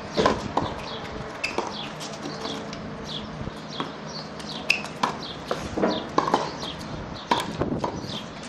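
Tennis ball struck by racquets and bouncing on a hard court during a rally: sharp pops at uneven spacing, roughly one every half second to second. High, short chirps that fall in pitch run throughout.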